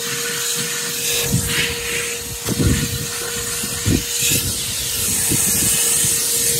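DeWalt DXV38S wet and dry vac running, a steady motor whine over a loud rush of air, with a few low thumps about two and a half and four seconds in.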